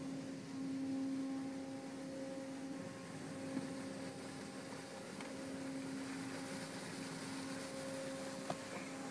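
Rollover car wash spraying water and soap over a car, heard from inside the car's cabin: a steady hiss of spray over a steady low hum, the hiss strengthening in the second half. A sharp tick comes about three and a half seconds in and another near the end.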